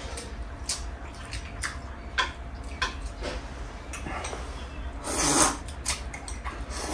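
Table sounds of two people eating: chopsticks clicking against porcelain rice bowls and plates, with chewing, and a longer, louder breathy noise about five seconds in.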